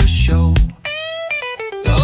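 Funk music with a plucked electric guitar line. The bass and beat drop out for about a second in the middle, leaving a brief higher melodic phrase, then come back.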